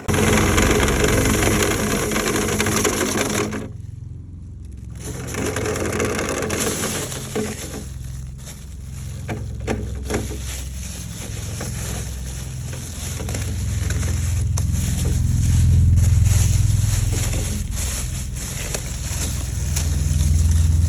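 Motorized dryer vent cleaning equipment running, a steady low motor drone, with irregular knocks and rattles as the rotary brush works through the vent duct.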